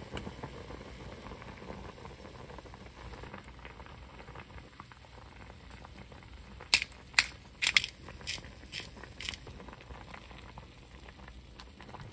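Pot of fish cake soup at a rolling boil, bubbling steadily. A little past the middle comes a run of about six sharp clicks over some three seconds.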